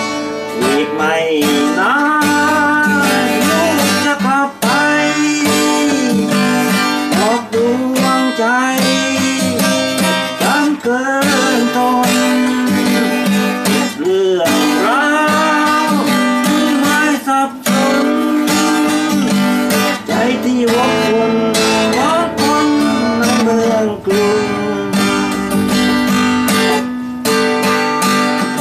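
Steel-string cutaway acoustic guitar strummed and picked, with a melody line that bends in pitch over sustained chords.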